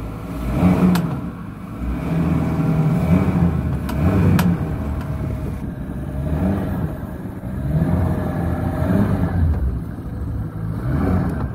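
Yamaha 200 outboard jet running in reverse, revved up and down several times in a row. The revving tests the just-adjusted reverse bucket linkage, which holds in gear.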